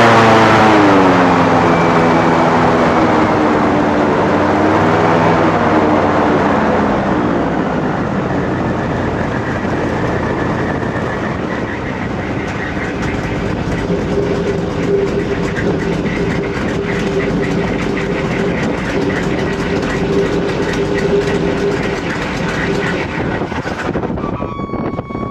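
Airboat engine and air propeller running, their pitch wavering and dropping over the first few seconds as the throttle comes off, then settling into a lower, steady drone with a rushing noise. The sound cuts off suddenly near the end.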